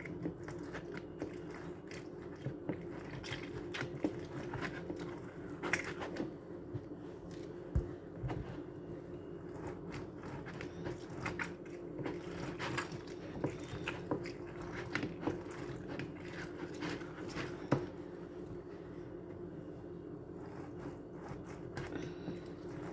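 Orange halves twisted and pressed onto a plastic hand citrus reamer: a continuous string of irregular short scraping and crunching sounds as the fruit's pulp is ground against the ridged cone.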